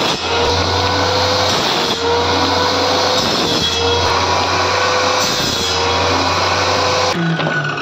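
Table saw with its circular blade rising through a plywood bench top, running and cutting a stack of thin plywood strips into small blocks: a steady loud motor whine under the noise of the cut. The whine sags slightly and recovers about once a second as each cut loads the blade, and the sound drops away abruptly near the end.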